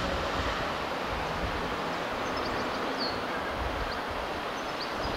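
Steady outdoor background noise at a railway level crossing, with a low rumble dying away in the first second and faint high bird chirps now and then.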